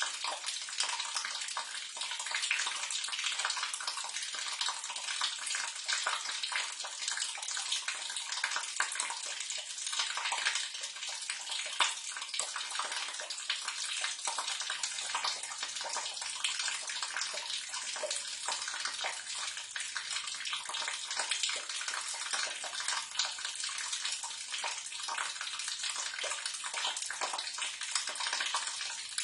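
Water running and splashing down into a sewer drain: a steady, dense splashing rush that keeps on without a break.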